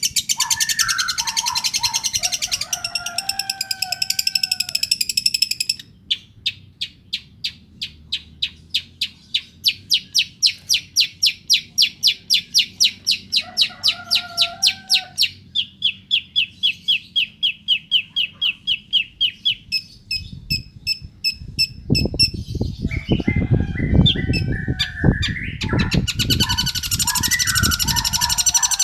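A young long-tailed shrike (pentet), about five months old, singing its mimicked repertoire: dense high chattering, long runs of evenly spaced high chips, and lower whistled phrases mixed in. Low thuds and rustling come in a little after two-thirds of the way through, beneath the song.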